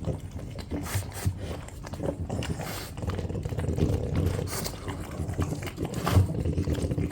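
French bulldogs eating noisily, with chewing, snuffling and irregular short clicks and grunts.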